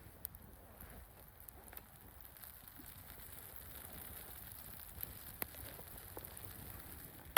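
Campfire crackling softly: a faint hiss with scattered small sharp pops a second or so apart.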